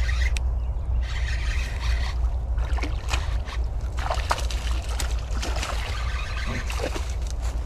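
Water splashing and sloshing irregularly as a hooked fish thrashes at the surface while it is played in, over a steady low rumble.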